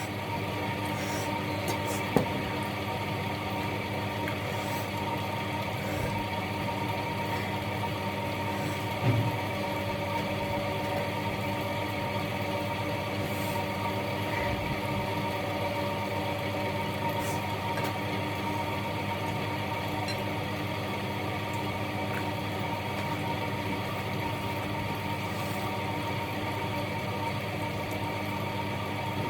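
A steady mechanical hum made of several fixed tones, with a couple of brief clicks or knocks, one about two seconds in and one about nine seconds in.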